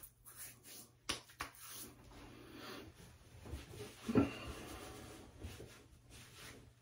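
Faint handling and rustling sounds as a person moves about and reaches for things, with two light clicks about a second in and a louder knock about four seconds in.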